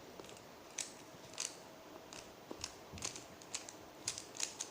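Rubik's cube layers being turned quickly by hand through a solving move sequence: a run of faint, sharp plastic clicks that come faster in the second half.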